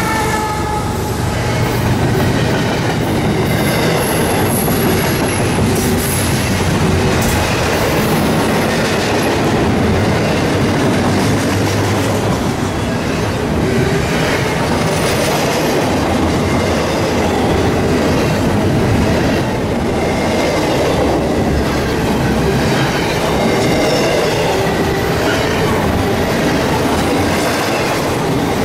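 Double-stack intermodal freight cars rolling past at speed: a steady rumble and rattle of steel wheels on the rails, with faint high wheel squeals now and then.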